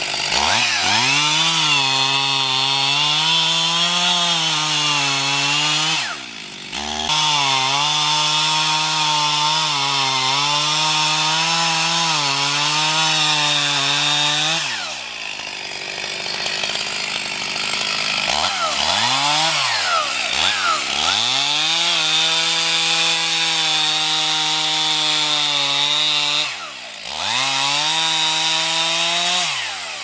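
Two-stroke chainsaw at full throttle cutting into the base of a standing tree trunk. The engine note dips briefly about six seconds in and falls to idle around the middle. It is revved up and down twice, then cuts again, with another short dip before dropping back near the end.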